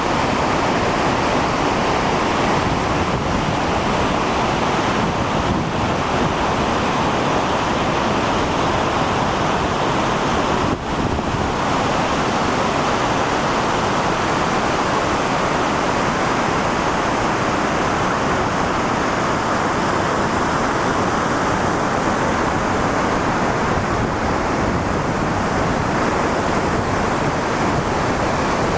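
Latefossen, a twin waterfall, crashing down with a loud, steady rush of falling water.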